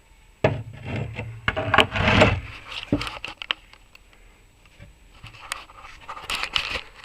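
Rubbing and scraping as a removed suspension trailing link is handled and turned over, with a single knock about three seconds in and softer rustling afterwards.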